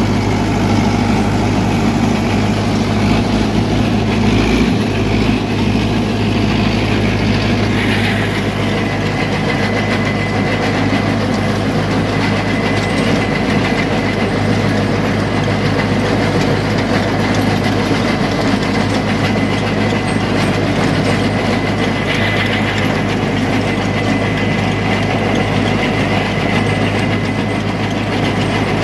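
Rakovica 60 tractor's diesel engine running steadily under load while driving a PTO rotary tiller through the soil. A thin high whine joins the engine about eight seconds in and holds.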